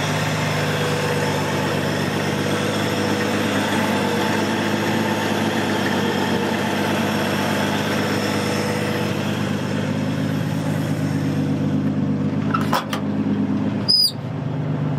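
1967 Ford F250's inline-six engine idling steadily through a rotted-out muffler. Near the end come two sharp knocks and a brief squeak.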